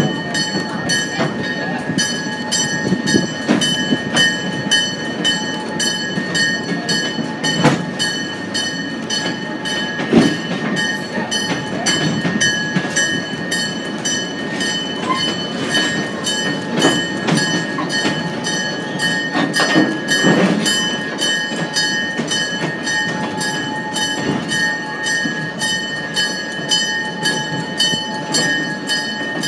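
Train running on the track, with a steady high ringing tone and a regular clicking about twice a second, broken by a few louder knocks.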